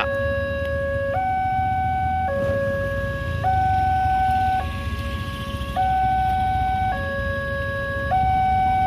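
Electronic warning alarm of a railway level crossing sounding while the barriers are down, alternating steadily between a low and a high tone, each held for about a second: the signal that a train is approaching.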